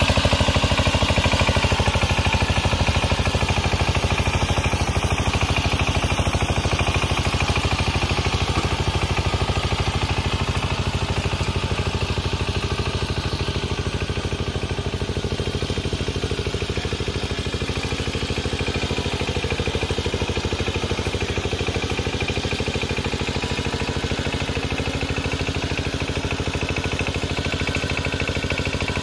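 Walking power tiller's horizontal single-cylinder diesel engine running steadily with a rapid, even chugging while it pulls its cage wheels and rotary tiller through flooded paddy mud. It grows slightly fainter over the first half as the machine moves away.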